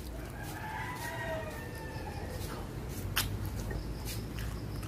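A rooster crowing once, a wavering call lasting about two seconds near the start, then a single sharp click about three seconds in.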